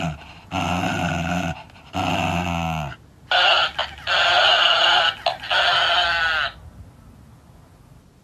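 A Shiba Inu growls at a talking plush toy in three low-pitched bouts. The toy then plays the three bouts back at a higher, squeaky pitch, louder than the dog.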